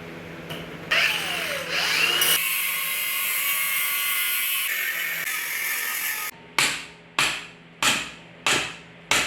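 A power tool running steadily as it cuts the large rear differential mount off a steel BMW E46 rear subframe, then five sharp strikes about two-thirds of a second apart near the end.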